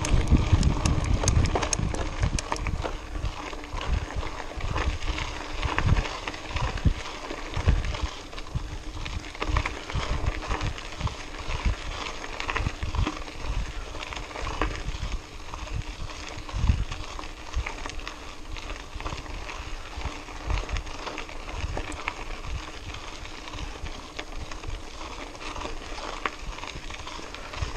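Mountain bike rolling over a gravel dirt road: tyres crunching, with irregular knocks and rattles from the bike jolting over bumps, heaviest in the first few seconds.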